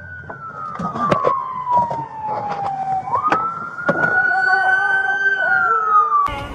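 Police car siren in a slow wail, its pitch sliding down over about three seconds, snapping back up and falling again, with several sharp knocks and thumps mixed in. The siren cuts off abruptly just before the end.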